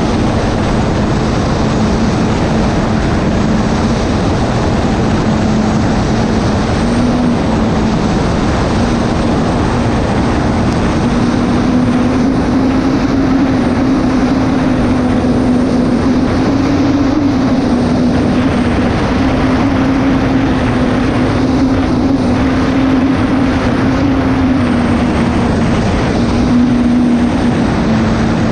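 Unlimited hydroplane's turbine engine running hard, heard onboard under heavy wind and water rush. It is a loud, steady drone whose pitch wavers slightly up and down.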